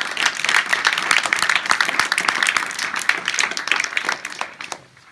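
Audience applauding, a dense patter of hand claps that thins out and stops near the end.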